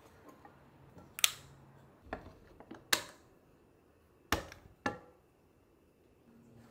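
Five sharp clicks and knocks of cookware being handled: a white Neoflam FIKA pan on a cooktop and its detachable clip-on handle being clicked on and taken off. The loudest knock comes a little over a second in.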